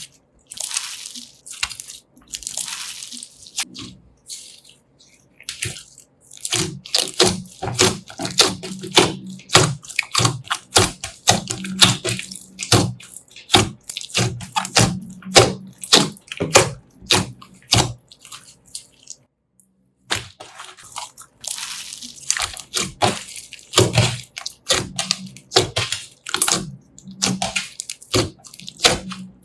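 Slime being squished and worked by hand: a dense run of wet clicks and pops, with a brief break about two-thirds of the way through.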